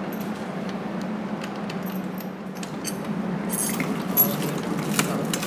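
Light metallic clinks and jingles of a spanner and nut working on a threaded steel hanger rod as a lock nut is tightened, growing busier in the second half with a few sharper clinks near the end. A steady low hum runs underneath.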